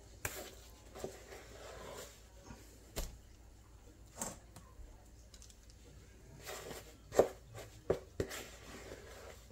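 A metal spoon and a wooden spoon scraping and tapping as thick fruit cake batter is scooped from a mixing bowl into a paper-lined cake tin: a scattering of soft scrapes and clicks, the sharpest about seven seconds in.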